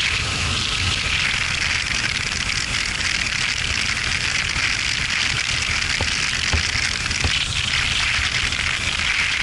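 Steady wind rush on the microphone of a camera on a moving BMW R1200RT motorcycle, over a low engine and road rumble, with a few faint knocks about six to seven seconds in.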